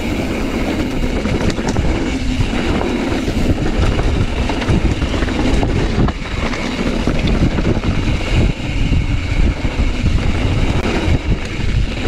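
Mountain bike descending a dirt trail at speed: wind buffeting the microphone over the tyres and the rattle of the bike on rough ground, with many small knocks and clatters throughout.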